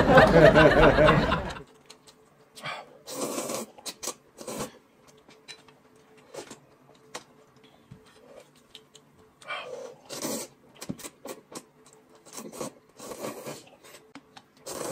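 Loud slurping of noodles at first, stopping after about a second and a half. Then scattered short slurps, sips and small clicks from people eating and drinking, over a faint steady hum.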